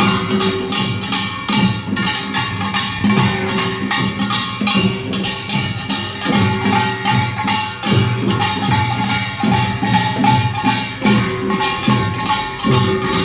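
Korean pungmul farmers' band playing a procession rhythm: fast, steady strokes on ringing small gongs over a pulse of heavier drum beats from the janggu and buk drums.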